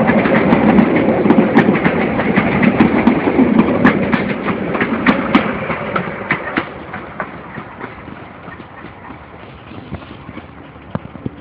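Passenger coaches of a train rolling past close by, wheels clicking and clacking on the rails, then fading away over the second half as the last coach recedes down the line.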